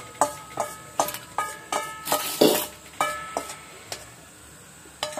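Metal fork stirring a gram-flour and buttermilk mix in a steel pot, knocking against the pot's side in quick clinks that ring briefly, about two to three a second. A louder rush comes about halfway through, and the clinking thins out after about three and a half seconds.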